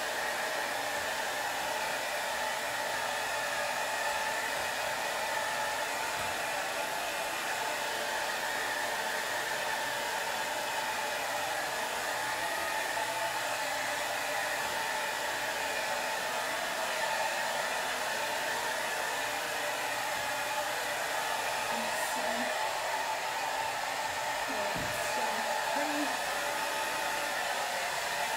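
Handheld hair dryer running steadily, its air blown against a freshly painted canvas to dry wet acrylic layers.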